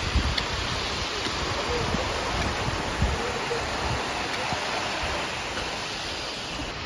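Steady rushing of a mountain creek, with low, irregular buffeting of wind on the microphone.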